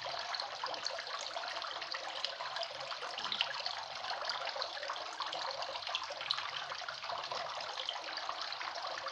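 A steady, crackling hiss of water-like background noise, unchanged throughout.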